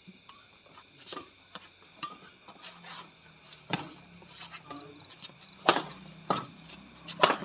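Badminton rally: racket strings striking the shuttlecock, a sharp hit every half-second to a second, some louder than others, the loudest near the end.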